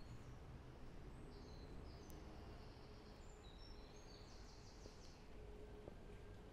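A small songbird singing faintly: a few short high chirps, then a quick run of repeated notes about four and a half seconds in, over a low steady background rumble.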